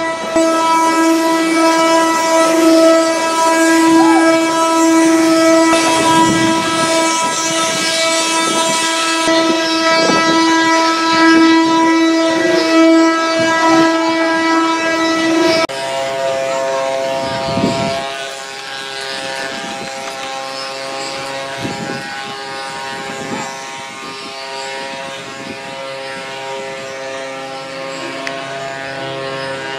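Wooden ox cart 'singing': the solid wooden axle turns with the wheels and rubs against its wooden bearing blocks, giving a continuous whining drone that holds one pitch. About halfway through, it switches abruptly to a drone of a different pitch.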